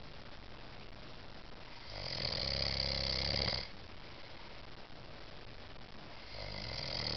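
A sleeping man snoring: one loud snore about two seconds in and another starting near the end, with quieter breathing between them.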